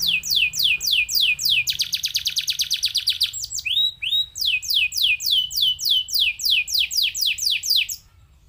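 Domestic canary singing: a fast run of high whistled notes, each falling in pitch, about six a second. Near the middle is a rapid buzzing trill of a second and a half, then two short rising notes and more falling notes, before the song cuts off suddenly about half a second before the end.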